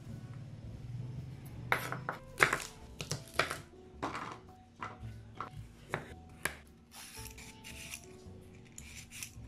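Green beans snapped by hand: a run of about ten crisp, irregular snaps over a wooden chopping board. Near the end come softer scraping strokes of a vegetable peeler on a carrot. Faint background music plays underneath.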